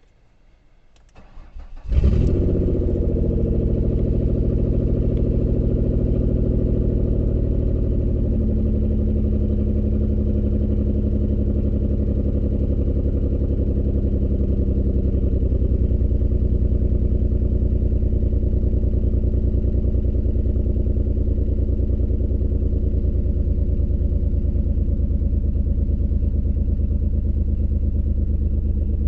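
2003 Ford Escape engine cranking briefly and catching about two seconds in, then idling steadily. The engine has a constant misfire on cylinder 4.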